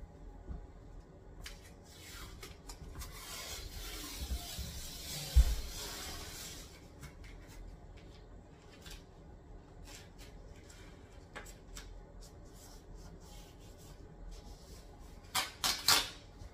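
Rustling and shuffling with one dull thump about five seconds in as a man kneels down on a laminate floor; near the end, about three short rasping rips of blue painter's tape being pulled off the roll.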